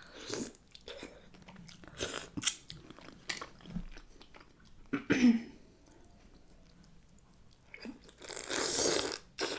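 Close-miked eating sounds of a person eating seafood: chewing and biting, with scattered sharp clicks, a loud smack about five seconds in, and a longer hissing noise near the end.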